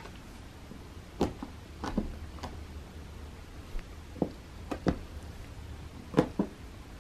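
Light taps and knocks on a carpeted cat scratching ramp with a wooden frame, several in quick pairs, as a cat swats at a feather boa toy pulled across it; the sharpest comes near the end.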